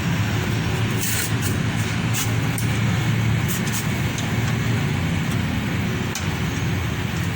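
Steady low engine drone with scattered sharp clicks and taps.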